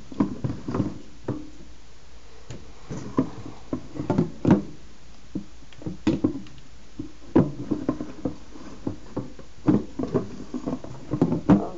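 Irregular knocks, bumps and rubbing of things being handled close to the microphone, about one or two a second.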